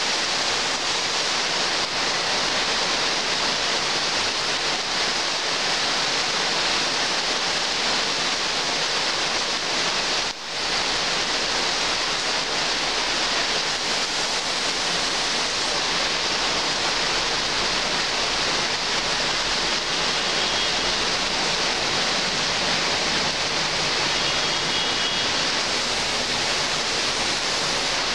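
Heavy rain pouring steadily onto dense tree foliage, a constant loud hiss with one brief dip about ten seconds in.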